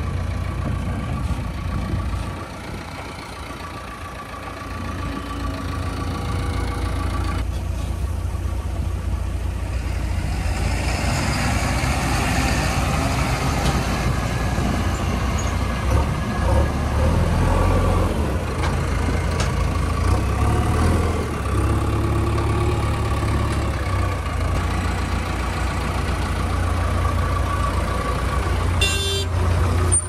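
Heavy diesel engines of a tipper truck and a JCB 3DX backhoe loader running, a steady low rumble that grows louder about ten seconds in.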